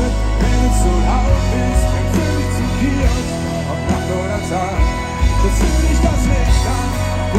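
Live pop-rock band playing a song, with bass and drums and voices singing over it, recorded from the audience.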